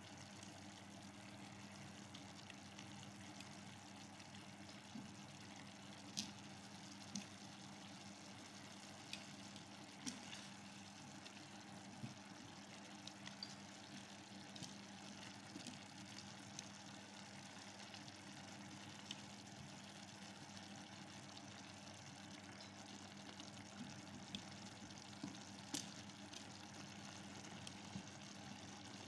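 Chicken and vegetables simmering in sauce in a frying pan, a faint steady sizzle, with scattered light taps and clicks of kitchen tongs against the pan. A steady low hum runs underneath.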